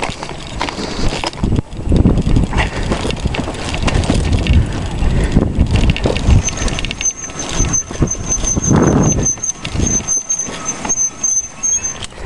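Walking noise: footsteps on frozen ground, with wind and handling noise on a handheld camera's microphone coming in irregular low surges and knocks. A thin, high, rapidly pulsing whine joins about six seconds in and runs until near the end.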